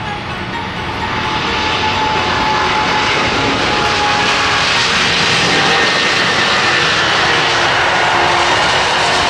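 Jet airliner engines at takeoff thrust on a runway roll, building up about a second in and then holding steady and loud, with faint whining tones over the roar.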